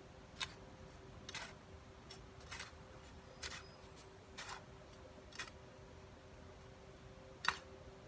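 Long-handled hoe chopping into garden soil: seven short, sharp strikes about once a second, with a longer pause before the last and loudest one.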